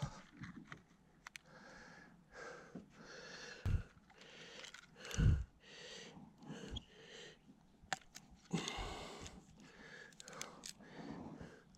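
A person breathing heavily close to the microphone, one hissing breath about every second. Two dull thumps come in the first half, and a few sharp clicks about eight seconds in.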